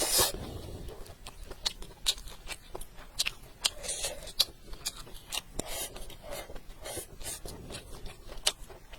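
Close-miked eating sounds: wet chewing and smacking with many irregular sharp mouth clicks, loudest in a brief burst right at the start.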